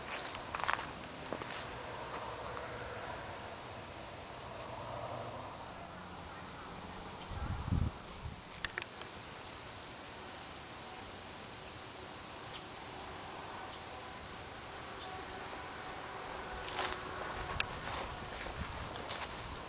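Crickets trilling in a steady, high-pitched chorus, with a few soft knocks and a low bump about eight seconds in.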